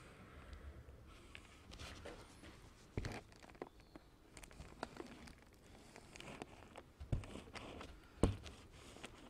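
A hand-held covering iron pressed and slid along the edge of a foam wing, the laminating film faintly rustling and crinkling under it, with a few sharp taps, the loudest near the end.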